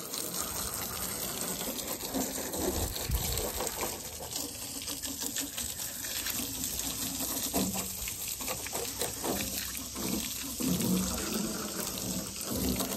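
Water from a garden hose spraying against a vehicle's body, window and rubber spare tyre: a steady splashing rush of water that swells and dips as the jet moves.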